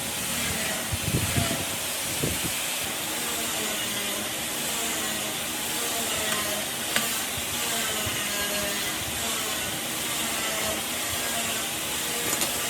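Steady hissing noise with a few faint clicks.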